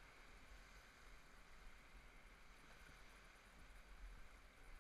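Near silence: faint, steady outdoor background hiss with a low rumble underneath.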